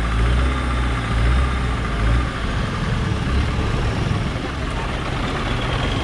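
A large engine idling: a low, steady hum that turns rougher and noisier about two seconds in.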